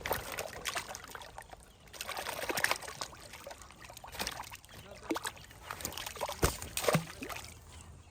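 Water trickling and splashing, with irregular sharp knocks and clatters; the loudest are two knocks close together about two-thirds of the way through.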